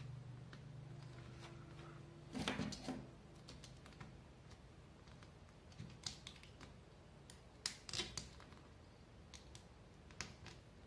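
Faint, scattered clicks and taps of thread being wound by hand around the small nails of a string-art board, with a few sharper clusters about two and a half and eight seconds in.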